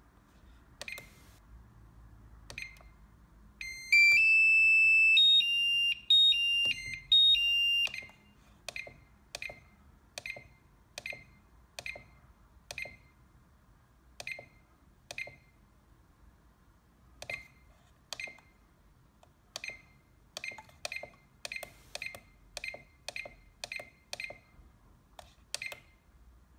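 SkyRC D100 dual balance charger beeping at each press of its front-panel buttons: dozens of short high beeps, each with a faint click, coming in quick runs of about two a second near the end. About four seconds in, a louder tune of stepped high beeps plays for about four seconds.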